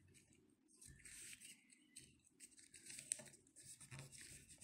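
Faint rustling and creasing of a square sheet of origami paper being folded by hand, with a small click about three seconds in.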